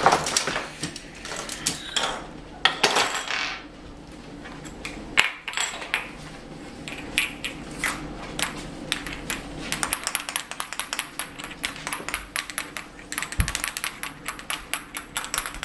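Small plastic toy figures clattering and knocking together in a play fight: a string of light clicks and taps that turns into fast rattling in the last few seconds.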